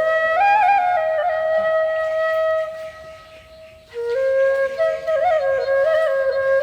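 Background music: a solo flute playing a slow melody with small ornamental turns between notes, breaking off briefly about three and a half seconds in before going on.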